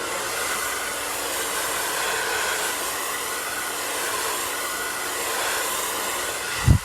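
Handheld blow dryer running steadily on its cool setting, blowing lace glue dry along a wig's hairline. It cuts off near the end with a short low thump.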